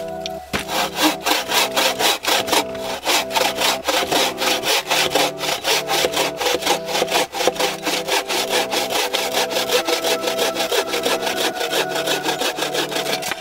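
Wooden-framed bucksaw cutting through a pine log in quick, even back-and-forth strokes.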